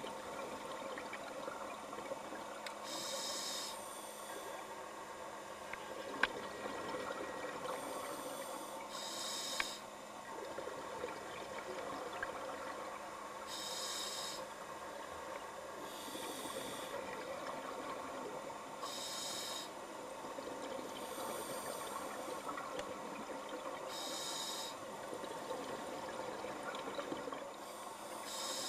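Scuba diver breathing through a regulator underwater: a hissing breath about every two to five seconds, about nine in all, over a steady bubbly crackle.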